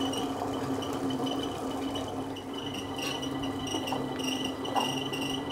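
Table-top wet grinder running, its stone rollers grinding soaked urad dal into thick batter in the spinning steel drum. A steady hum, with a high tone that comes and goes in pulses.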